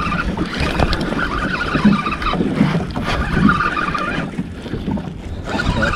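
Fixed-spool spinning reel being cranked, winding in line against a hooked fish, with wind buffeting the microphone.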